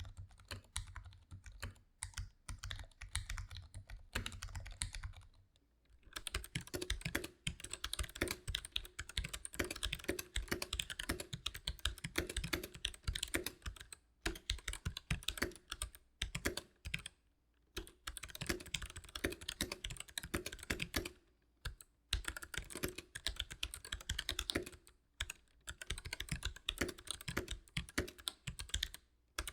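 Typing bursts on a mechanical keyboard, with short pauses between runs. About five seconds in, the clatter turns much brighter and sharper.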